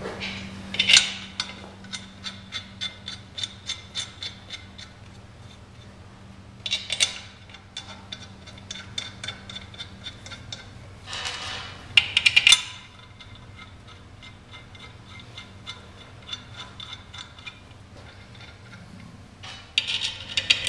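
Metal-on-metal work on a centrifugal pump's adapter and power frame: runs of quick, even metallic clicks with a few louder scraping clinks as the adapter is seated on the shaft and its bolts are fitted.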